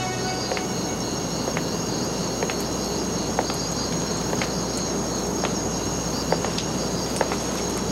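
Crickets chirping: a steady high trill with repeated chirps over a background hiss, with scattered faint ticks.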